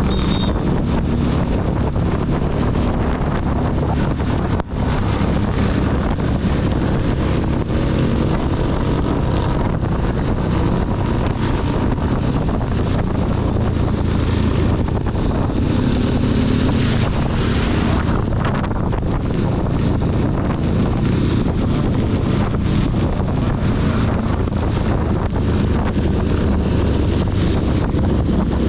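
Honda CB250 motorcycle engine running steadily while riding, under a dense rush of heavy rain and wind noise on the camera microphone. The sound drops out for an instant about five seconds in.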